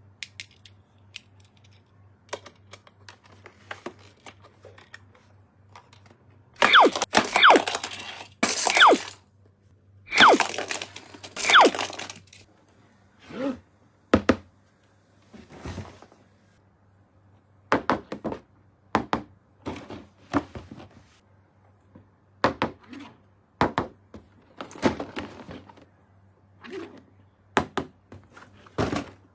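Toy unboxing handling sounds: two loud spells of packaging being torn and crinkled, about seven and ten seconds in, then scattered taps, clicks and knocks of plastic toy parts and packaging. A faint low hum runs underneath.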